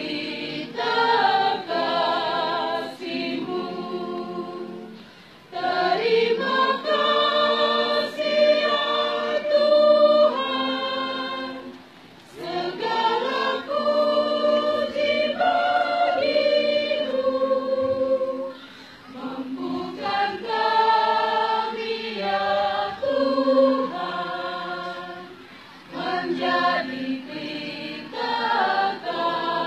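Church choir singing a hymn together, phrase by phrase, with short breaths between phrases about every seven seconds.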